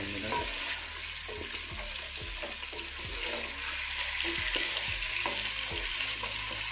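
Chicken pieces sizzling in hot oil in a metal pot with a steady hiss. A wooden spatula stirs them, scraping and knocking against the pot again and again.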